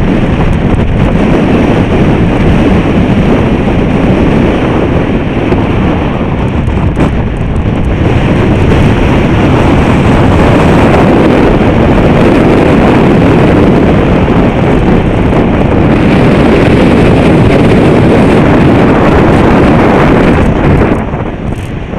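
Strong wind buffeting the microphone: a loud, steady rumbling rush that drops off suddenly about a second before the end.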